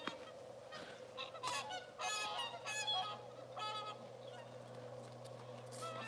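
A flock of swans honking, with a flurry of overlapping calls in the middle over a steady low background hum.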